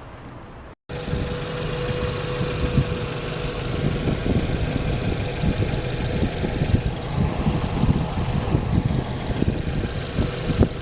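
Nissan NV350 Caravan van's 2.0-litre four-cylinder petrol engine idling, heard close up with a steady low chugging; it starts abruptly about a second in.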